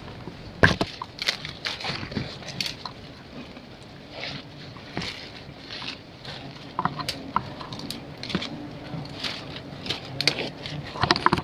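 Leaves and twigs rustling and crackling in irregular sharp clicks as someone moves through tree foliage, over a faint low steady hum.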